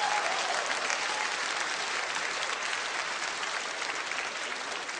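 Audience applauding: dense, steady clapping that is loudest at the start and slowly eases off.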